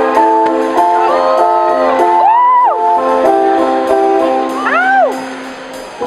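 Live band music: sustained chords with two swooping notes that bend up and back down, and a light regular tick on top. It thins out and gets quieter about five seconds in.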